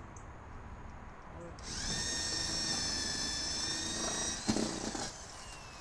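Corded electric drill spinning up quickly and running steadily for about three seconds as it bores into the wall siding, then stopping, followed by a short clunk.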